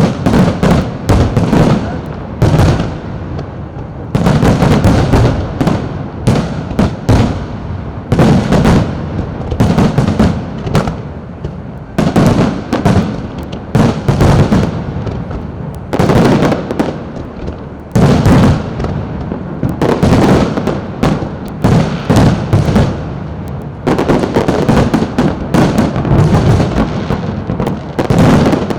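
Fireworks going off in a dense barrage: rapid sharp bangs and crackles, swelling into a loud cluster about every two seconds.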